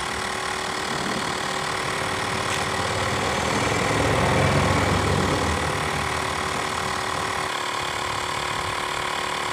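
Xiaomi Mi portable electric air compressor switching on suddenly and running steadily, a buzzing hum with steady whining tones, as it pumps air into a car tyre toward its preset pressure. Its tone shifts slightly about three-quarters of the way through.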